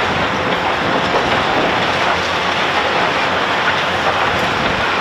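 Demolition excavators working on concrete: a steady, loud din of diesel machinery mixed with dense crunching and clattering of broken concrete and debris.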